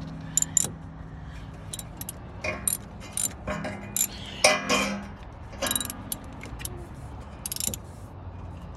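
Hand tools clinking and clicking against metal at irregular moments while a new spark plug is tightened into the engine of a 2001 Toyota Sequoia.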